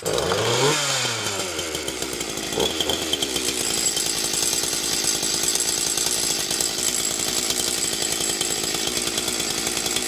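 Shindaiwa 490 two-stroke chainsaw, with its bar and chain off, catching from a pull start and running. It rises briefly in pitch just after it fires, then runs steadily until it cuts off at the end. It is running on old fuel left in the tank.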